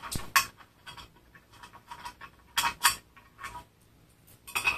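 Plastic washers being worked off a robotic lawn mower's cutting disc by hand: a series of short clicks and scrapes, loudest about a third of a second in, twice near the middle, and again near the end.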